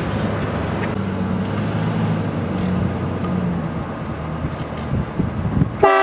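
Pickup truck driving, its engine and road noise steady and low. Near the end a truck-mounted train horn suddenly blasts, a loud chord of several tones.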